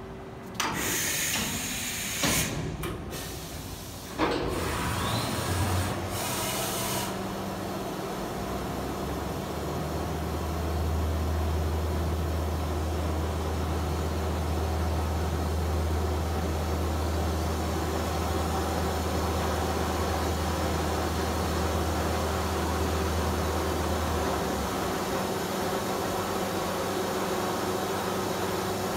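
Mazak VCN 700D vertical machining center running. There are hissing bursts over the first several seconds, then a strong steady low hum starts about ten seconds in and stops near twenty-four seconds, over a constant lighter machine hum.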